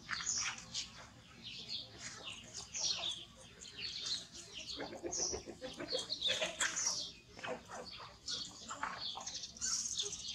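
Small birds chirping and twittering, many short high calls in quick, overlapping succession.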